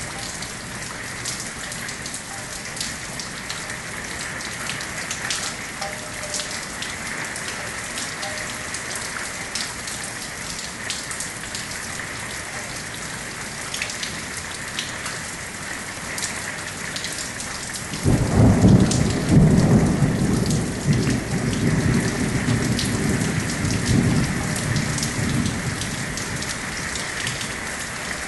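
Steady rain, with many sharp clicks of drops landing close by. About two-thirds of the way in, a loud roll of thunder breaks in suddenly and rumbles for several seconds before easing off.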